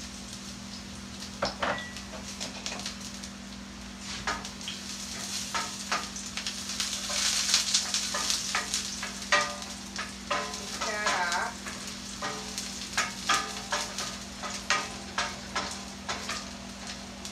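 Minced fresh garlic sizzling in hot olive oil in a stainless steel frying pan, stirred with a wooden spoon that knocks and scrapes against the pan. The sizzle is loudest about halfway through.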